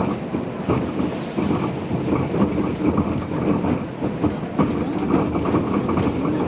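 Toronto Flexity Outlook streetcar heard from inside while running along its track: a steady rumble with frequent clacks and rattles from the wheels and car body.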